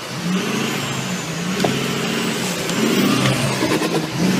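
Off-road pickup truck's engine revving hard and rising and falling in pitch as it claws up a steep dirt bank, with its tyres spinning and spraying dirt.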